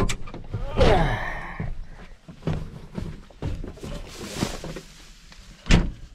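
Latch clicks of a New Holland TG210 tractor's cab door as it is opened, then creaks, rustling and knocking as a person climbs down into the crop rows. A single sharp thunk comes near the end.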